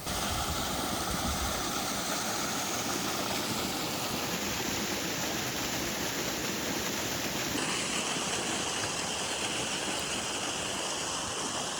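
Mountain waterfall cascading, a steady rush of water with no let-up; its tone changes abruptly twice, about a third and two thirds of the way through.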